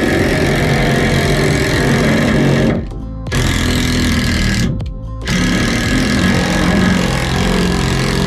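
Cordless impact driver hammering long screws through a wooden brace into the van's steel body. It runs in three bursts, broken by short pauses about three and five seconds in.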